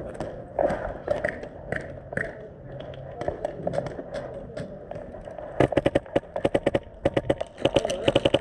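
Airsoft rifle firing several rapid full-auto bursts, starting a little past halfway through. Before that there are only scattered sharp taps.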